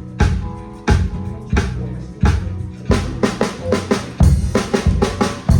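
Instrumental gospel music: a drum kit with bass drum and snare playing over held chords, the hits coming about one and a half a second at first and then quicker and busier about three seconds in.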